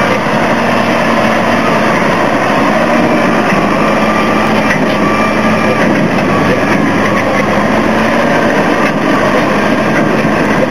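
Tractor engine running steadily, with a constant low hum.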